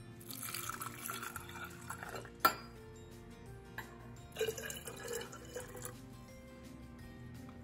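Water poured from a stainless steel measuring cup into a glass jar of spices, in two pours, with one sharp clink of the cup against the jar about halfway through. Faint background music underneath.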